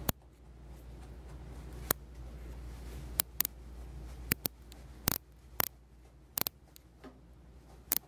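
About a dozen sharp, irregularly spaced clicks and snips from grooming tools worked through a matted Maltese puppy's coat; the loudest come about five and six and a half seconds in.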